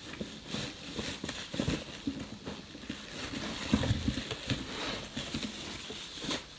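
Plastic wrap and bubble wrap crinkling and cardboard box flaps rustling, with irregular light knocks, as a boxed EV charging station and its cable are handled during unboxing.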